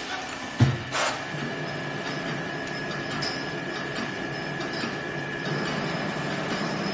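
A single sharp knock about half a second in, then the steady running hum of an automatic wire stripping and cutting machine, with a thin high whine held throughout.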